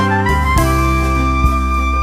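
Background instrumental music: a sustained melody line moving between held notes over a steady bass, with a couple of light percussive taps.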